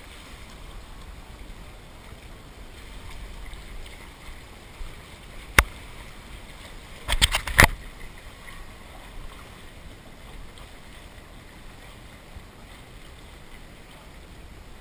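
Steady outdoor poolside background hiss with faint water sounds, broken by one sharp knock about five and a half seconds in and a quick run of several sharp knocks a second and a half later.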